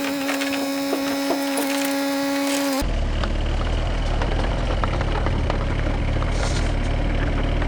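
Machinery running: a steady whine with sharp clicks for nearly three seconds, then an abrupt change to a low engine rumble with crackling.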